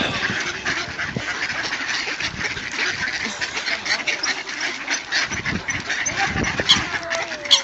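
A crowd of mallards and Eurasian coots calling over one another: a steady chatter of overlapping quacks and short, sharp calls.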